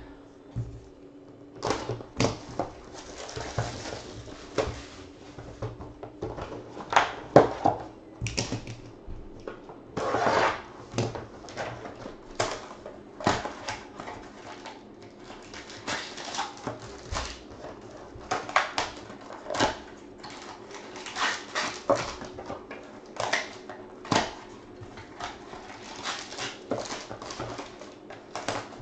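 A cardboard trading-card hobby box and its foil-wrapped packs handled and opened by hand: irregular crinkling and crackling of foil and plastic wrap, with sharp rustles.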